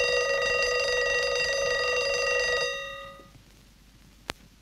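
Westclox Big Ben alarm clock's bell ringing with a fast, even rattle, stopping about two and a half seconds in and dying away over about half a second. A single sharp click near the end.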